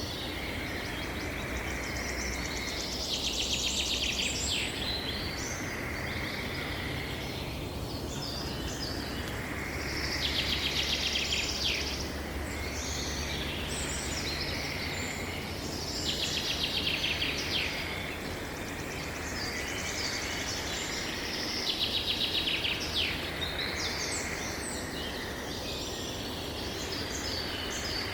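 A small songbird singing a short, rapid trilled phrase, repeated four times at intervals of about six seconds, over steady outdoor background noise.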